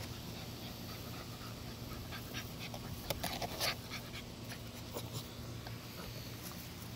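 American Bully puppies panting, with a few short sharp sounds a little after three seconds in.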